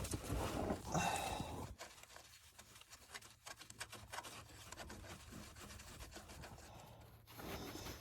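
Faint rubbing, scraping and small irregular clicks of hand tools and handling while working on a starter's bolts, a little louder in the first second and a half.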